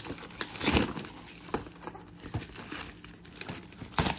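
Crinkling and crackling of the packaging on a foil trading card box as it is handled, with louder crackles a little under a second in and again near the end.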